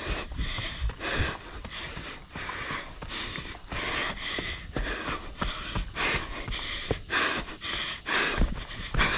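A runner's heavy panting, quick repeated breaths about two to three a second, with footfalls on dirt and rock during a fast downhill run.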